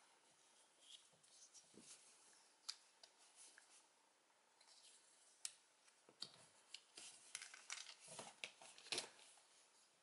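Faint clicks and rubbing of small plastic Morph-X toy keys being handled and worked between the fingers, the clicks coming thicker and sharper from about six seconds in.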